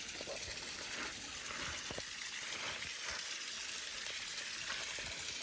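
Waterfall pouring into a creek: a steady rushing of falling water, with a few soft low thumps.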